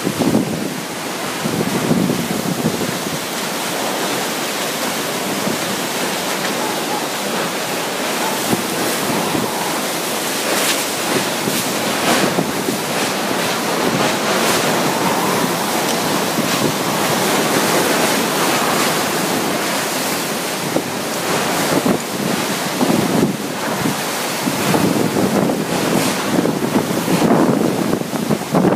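Super Typhoon Haiyan's (Yolanda's) wind and driving rain at landfall: a loud, continuous rush that surges in gusts, strongest near the end, buffeting the microphone.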